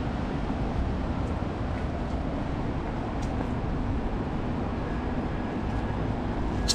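Steady low outdoor background rumble, with a few faint light ticks and one sharper click near the end.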